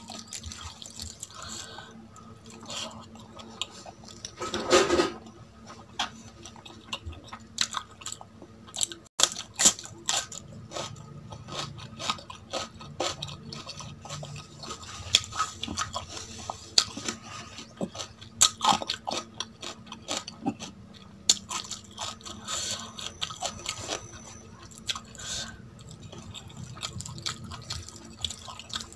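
Close-miked wet chewing and lip-smacking of a person eating rice and curry, a dense run of small sharp clicks, with fingers squishing the rice and curry together on a steel plate. One louder sound stands out about five seconds in.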